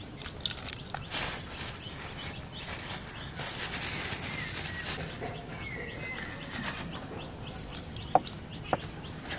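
A hand sprinkling and rubbing a dry powder into cooked rice in a steel bowl: rustling and gritty crumbling in spells, with two sharp clicks near the end. Faint bird chirps in the background.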